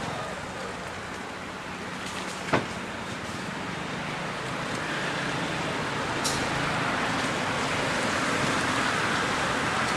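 Steady hum of motor traffic, growing louder in the second half as a vehicle comes nearer. A single sharp click about two and a half seconds in.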